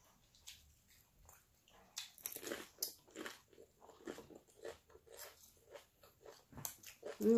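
Close-up crunching and chewing of fast food, tortilla chips from a taco salad and chicken nuggets, in short irregular bites, denser from about two seconds in. A short, louder vocal sound comes near the end.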